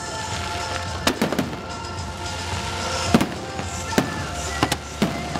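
Aerial firework shells bursting in a string of sharp bangs, some coming in quick clusters, the loudest about three seconds in. Music plays steadily underneath.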